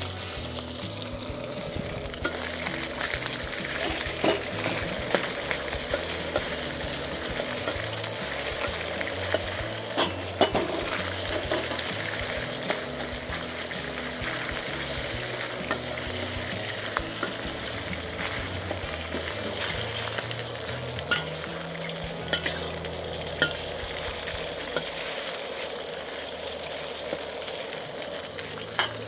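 Beef pieces sizzling as they fry in a very hot wok, stirred with a metal wok spatula that gives occasional sharp clinks against the pan.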